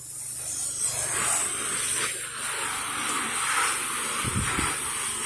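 Pressure washer spraying water, a steady hiss that builds up about a second in, with a brief low thud about four and a half seconds in.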